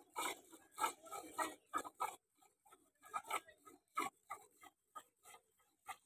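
Milk squirting from a cow's teats into a steel bucket during hand-milking, a short hissing jet about twice a second in a steady rhythm.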